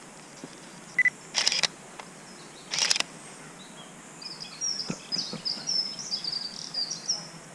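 A digital SLR camera beeps once as it locks focus, then its shutter fires in two short bursts. About halfway through, a small bird sings a quick run of high chirps.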